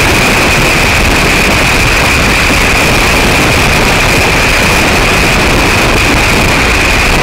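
Loud, steady wind and road noise of a vehicle driving at highway speed, with a constant high whine running through it.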